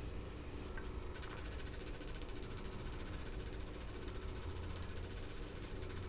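Gas torch flame hissing steadily as it heats a red-hot steel joint.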